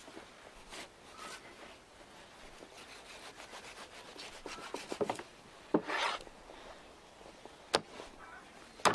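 Butcher's knife cutting and scraping through raw meat and fat as the skin is worked off a carcass, a soft rasping scrape with a louder stretch about six seconds in. A few sharp knocks come in the second half.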